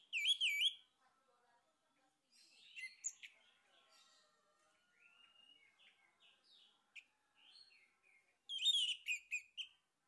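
Male orange-headed thrush singing: loud, quickly warbled phrases at the start, about three seconds in and near the end, with softer twittering phrases in between.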